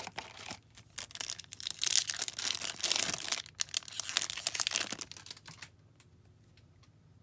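A hockey card pack's wrapper being torn open and crinkled in the hands. A dense run of crackling lasts about five seconds, then stops well before the end.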